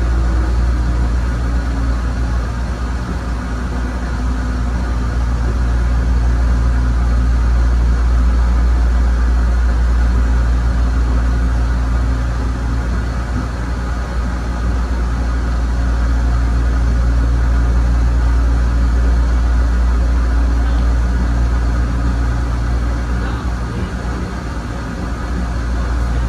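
A 1993 ABB N5 electric railcar running: a steady low rumble with a motor whine that falls in pitch over the first couple of seconds, then holds roughly level.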